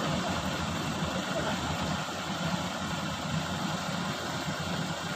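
Heavy machinery diesel engine running steadily at idle, a low even drone.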